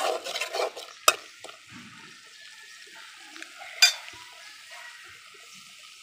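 Masala frying in oil in a karahi while a spatula stirs it. The sizzle is loudest in the first second, then falls to a low hiss. There are two sharp clinks of the spatula against the pan, one about a second in and one nearly four seconds in. The masala is being fried down until the oil separates.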